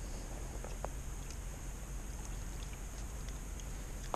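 Quiet water lapping against a kayak hull, a steady low wash with a few faint clicks.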